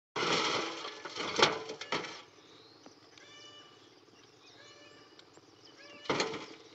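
Dry clods of earth being handled and dropped into a metal wheelbarrow: crumbling and knocking for the first two seconds with two sharper thuds, quieter for a while, then another thud near the end. Faint, short, high animal calls sound in the quieter middle.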